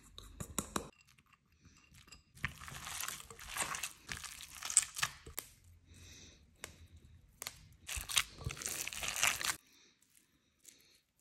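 Hands mixing and squeezing a crumbly breadcrumb, pecorino and swordfish meatball mixture in a glass bowl, a crackly rustling in two stretches with small clicks between.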